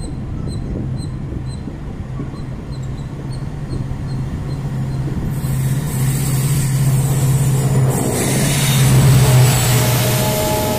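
Express train running noise heard from an open coach doorway: a steady low rumble and hum of the wheels on the track. From about halfway a rushing noise builds as an oncoming train approaches on the next track, loudest near the end as its locomotive passes close alongside.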